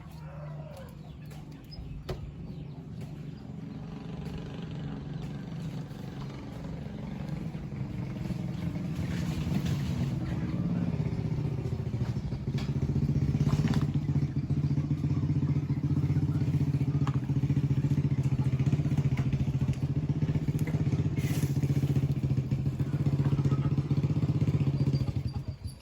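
Engine of a rice-milling machine running steadily, growing louder over the first dozen seconds and then holding at a constant speed, with a few light knocks; the sound drops away abruptly near the end.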